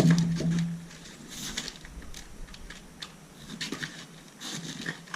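A steady low hum for about the first second, then a few short scattered rasps and clicks as a Stihl 440 two-stroke chainsaw is pull-started without yet catching.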